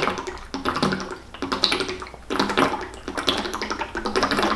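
A person gulping water in big swigs from a plastic gallon jug: a run of repeated swallows, with the water glugging in the jug.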